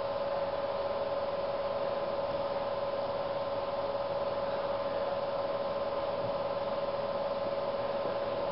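A steady electrical hum, one held tone with a fainter higher tone above it, over an even hiss.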